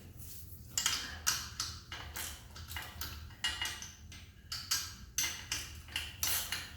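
Hand wrench and ratchet working loose the exhaust fasteners on a Honda CB750 engine: irregular metallic clicks and clinks, a few a second.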